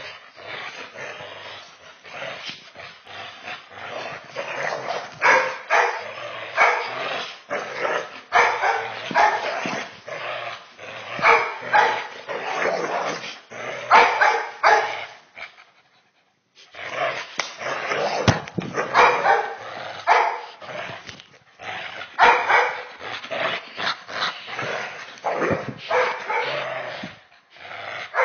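Black Labrador retriever growling and barking in play while tugging hard on a rope toy, in rapid repeated bursts. The sound cuts out for about half a second about halfway through.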